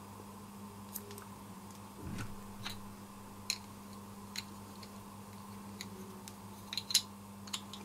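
Scattered light clicks and taps as small plastic model-locomotive parts are handled and fitted together, a cluster of sharper clicks about seven seconds in, over a steady low hum.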